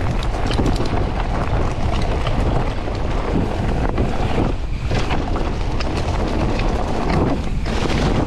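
Wind buffeting a chest-mounted camera's microphone while a mountain bike is ridden, with scattered small clicks and rattles from the bike and ground. Twice it eases off briefly.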